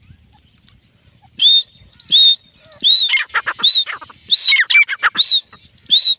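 Grey francolins calling: after a quiet first second and a half, a run of loud, shrill, repeated notes, each rising and falling in pitch, with rapid harsher notes packed between them from about three seconds in.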